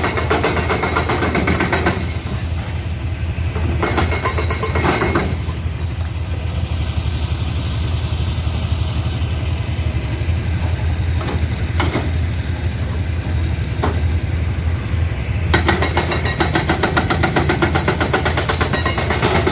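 Komatsu PC210 hydraulic excavator's diesel engine running steadily. Three stretches of dense clattering and scraping come at the start, about four seconds in and through the last four seconds, as the bucket works the rock and soil of a cliff face, with a few single knocks in between.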